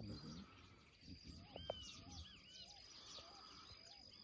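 Faint dawn birdsong in open country: several birds chirping with short arched calls, one repeating a short low note about twice a second.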